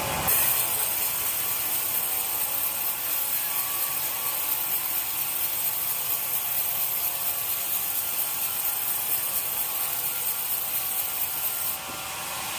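Power saw cutting through wood: a steady, hissing noise of the blade in the cut that starts abruptly and drops away near the end.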